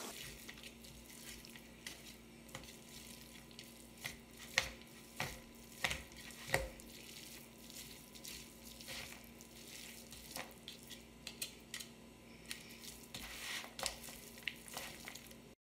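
Plastic meat-shredder claws tearing through cooked pulled pork and scraping an aluminium foil pan: faint wet crackling with scattered short clicks and scrapes.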